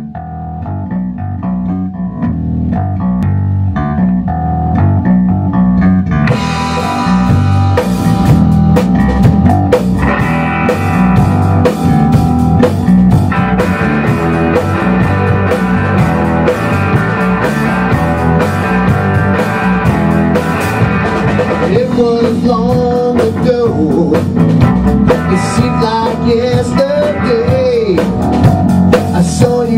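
Rock band playing an instrumental intro on bass guitar, drum kit and electric guitar. It starts low and quiet and builds, with the full band and cymbals coming in about six seconds in, and a higher melody line wavers on top near the end.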